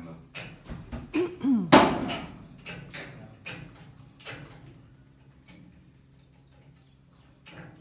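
A string of sharp metal knocks and clanks, about eight in the first half, the loudest a little under two seconds in, stopping about halfway: wheel-positioning jacks (wheel dollies) being set and worked under a truck's tires.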